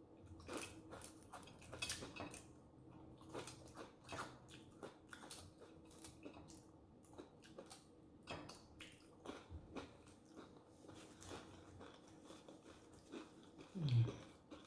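Close-miked chewing and wet mouth sounds of someone eating, with irregular smacks and clicks. A brief low hum of voice comes near the end.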